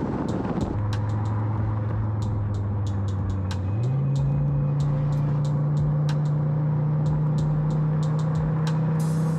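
Skoda Kodiaq RS's 2.0 TSI turbocharged four-cylinder petrol engine running at a steady pitch as the car drives, stepping up once to a higher steady pitch about four seconds in. Many sharp ticks sound over it.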